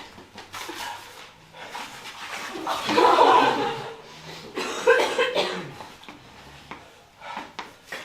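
Audience laughter with a cough or two, swelling loudest about three seconds in and again briefly about five seconds in.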